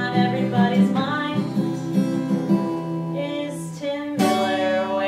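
A woman singing while strumming chords on an acoustic guitar, with a sharp strum about four seconds in.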